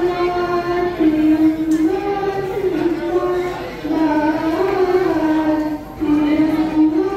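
A girl singing solo into a microphone without instruments: a melody of long held notes that step up and down, with short breaths between phrases.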